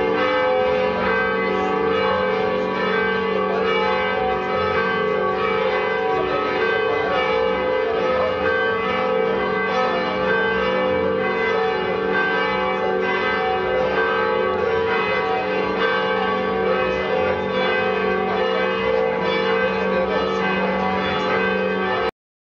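Church bells pealing continuously, many overlapping strokes ringing on together, until the sound cuts off abruptly near the end.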